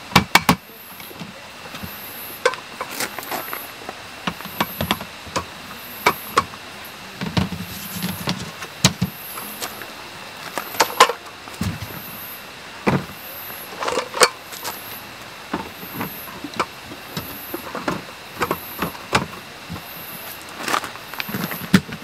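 Camping gear being handled while a screen tarp is pitched: scattered irregular clicks, knocks and rattles, with a couple of duller thuds.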